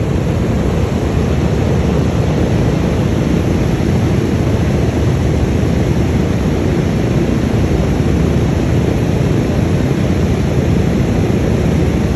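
Four radial engines of a B-17 Flying Fortress running close by as it taxis: a loud, steady engine noise, heaviest in the low end, holding even throughout.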